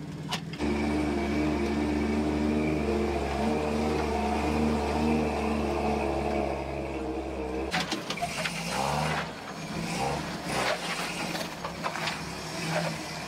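Toyota FJ40 Land Cruiser engine pulling at a steady pitch as the truck crawls up a granite slab. About eight seconds in the sound changes to the engine heard from outside, mixed with scattered clicks and knocks of the tyres working over the rock.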